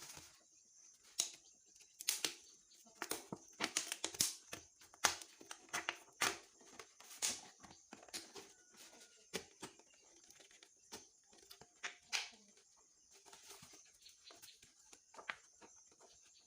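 A plastic bottle being handled, with irregular clicks, knocks and crinkles.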